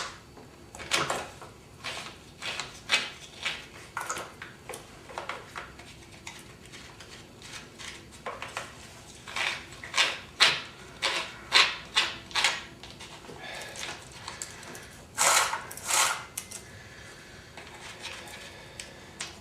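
Irregular clicks and knocks of the metal chain, bar and plastic clutch cover of a Homelite 14-inch chainsaw being handled and fitted back together, with two longer scraping sounds near the end.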